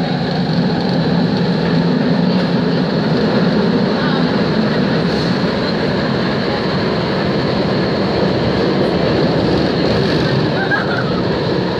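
Athens Metro Line 2 train running through a tunnel, heard from inside the carriage: a loud, steady rush and rumble of the moving train, with a low hum that is strongest in the first half and fades about halfway through.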